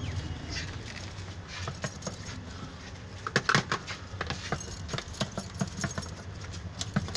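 Irregular light metallic clinks and jingles from metal bangles and rings on the wrists, mixed with a plastic jar tapping and scraping against a plaster wall.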